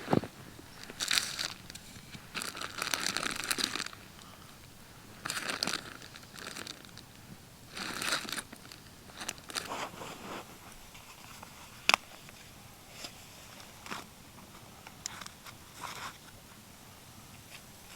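Irregular crinkling and crunching handling noises in short bursts, thinning out over the second half, with one sharp click about twelve seconds in.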